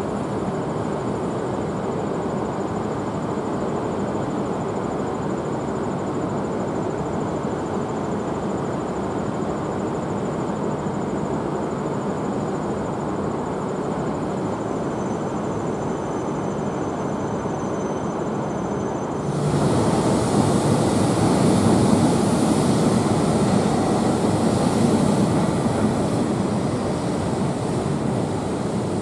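Steady low running noise of a train at a station platform. About two-thirds of the way in, a louder rushing hiss starts abruptly, swells for a few seconds and then eases off.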